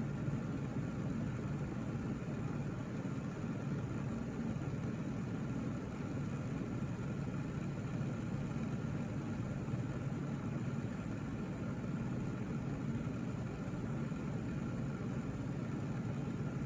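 Steady low hum of room background noise, unchanging throughout.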